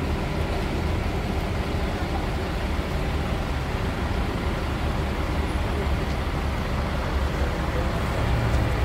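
Large touring coach's diesel engine running with a steady low drone as the bus pulls away from a standstill, the drone swelling a little near the end as it moves off.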